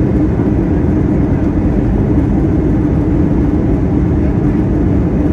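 Airbus A321 engines and rolling airframe heard from inside the cabin during the landing rollout: a loud, steady rumble with a low hum.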